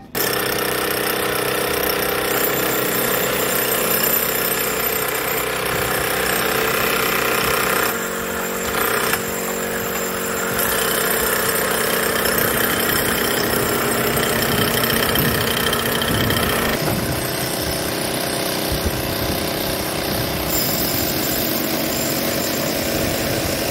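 Handheld electric demolition hammer chiselling into a masonry wall, a loud continuous rapid hammering that runs on through several cuts.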